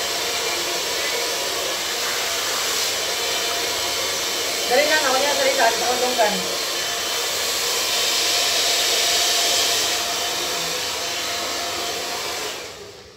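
Handheld hair dryer blowing steadily while drying a client's hair, stopping near the end; a brief voice cuts in about five seconds in.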